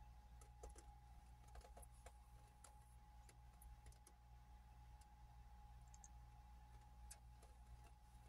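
Near silence: faint room tone with a steady low hum and a thin steady whine, and scattered faint clicks.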